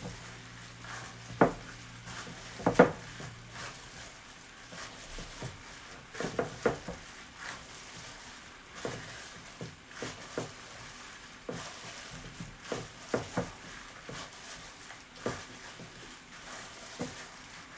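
Hands kneading rice-flour dough in a heavy glass bowl: irregular soft knocks and rubbing as the dough is pressed and the bowl shifts on the counter, with two louder knocks about a second and a half and three seconds in.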